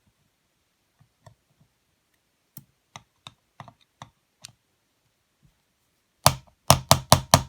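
Light clicks of parts being handled, then near the end a quick run of five sharp metal taps: the metal-capped butt of a screwdriver striking parts on a two-stroke motocross cylinder to jolt them up and out.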